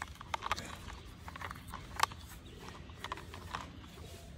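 Scattered light clicks and taps of a hollow plastic toy double-decker bus being handled and turned over, at irregular spacing, the sharpest about two seconds in.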